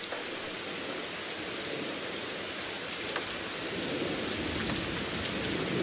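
Steady rain falling: an even hiss with a few scattered drop ticks, growing slightly louder, used as the intro of a rain-themed song.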